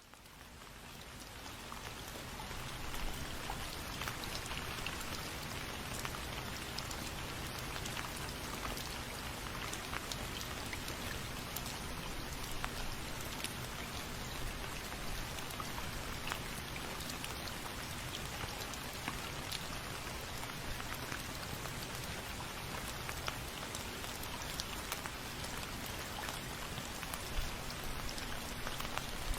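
Steady rain falling, a dense even hiss with many individual drops pattering on a surface. It fades in over the first couple of seconds and then holds steady.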